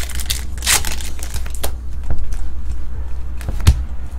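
Foil trading-card pack wrapper crinkling and tearing as it is pulled open by hand, with a sharp knock near the end, over a steady low electrical hum.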